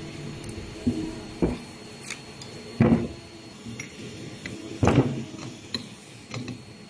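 Metal parts and tools of a stud welding gun being handled during disassembly, while the support bars and brass stud chuck are taken off: a series of clicks and clunks, the loudest about three and five seconds in.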